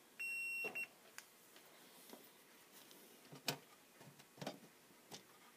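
A short electronic beep lasting about half a second, just after the start, followed by scattered light clicks and taps, the sharpest about three and a half seconds in.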